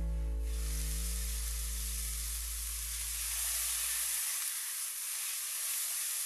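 Corn kernels and sliced onion sizzling as they sauté in a black cast-iron pot, stirred with a spatula; the steady sizzle starts about half a second in, while background music fades out, and a short click comes at the very end.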